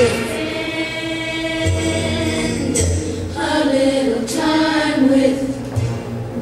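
Music with voices singing, over a low bass that comes and goes.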